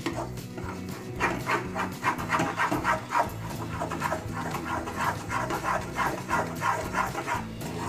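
Steel spatula stirring grated coconut into thick sugar syrup in a nonstick pan, a quick run of scraping strokes about four a second.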